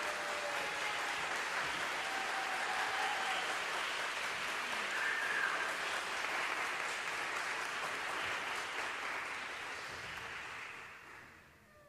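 Audience applauding steadily after a choir song, fading out near the end.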